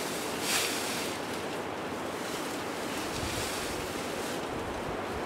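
Steady outdoor rushing noise of wind, with a few brief louder swells of hissy rustling as dry grass is handled.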